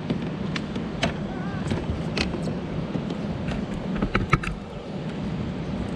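Scattered sharp clicks and knocks from handling in a kayak, two close together about four seconds in, over a steady low rumble.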